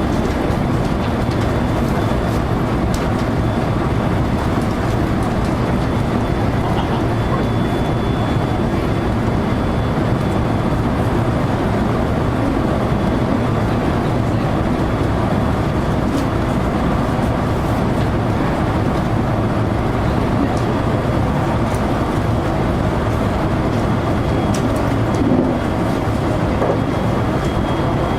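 JR local electric train running along the line, a steady rumble of wheels and running gear heard from inside the car, with a faint high whine held throughout.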